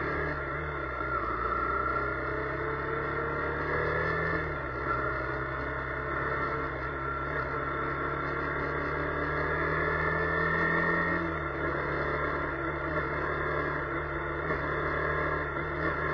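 A vehicle's engine accelerating through the gears. Its pitch rises, drops back at a shift about four seconds in and again near eleven seconds, then climbs again, over a steady rush of heavy rain and wet-road noise.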